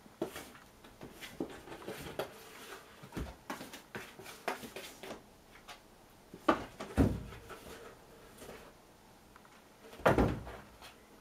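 A small, light cardboard box being knocked and scraped about on a tatami mat by a kitten playing in and around it: scattered light taps and rustles, a louder thump a little past halfway, and the loudest thump near the end as the box is tipped up on end.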